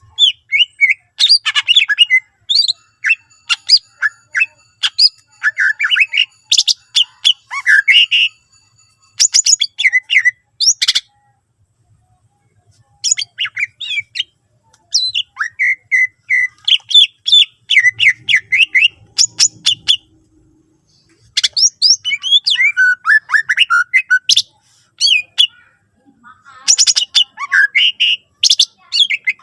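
Cucak ijo (green leafbird) singing loudly in rapid phrases of chirps, trills and sharp notes, each phrase several seconds long, with pauses of a second or two between them.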